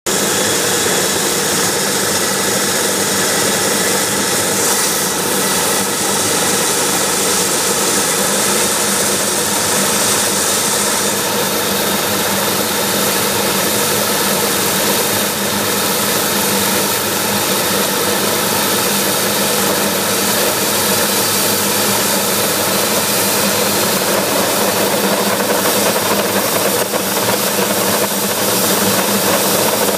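Homemade turbocharger-based turbojet engine running steadily on waste motor oil: a loud, even rush of noise with steady whining tones in it. The high hiss is stronger for a few seconds about five seconds in.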